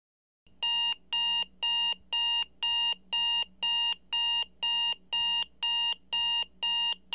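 Smartphone alarm ringing: a repeating high electronic beep, about two a second, starting about half a second in.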